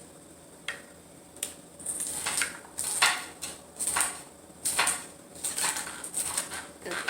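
Knife chopping green beans, a string of uneven taps about two a second.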